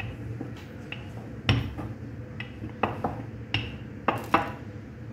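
Wooden rolling pin flattening bread dough on a floured board, with several sharp knocks of the pin against the surface, the loudest about a second and a half in, over a steady low hum.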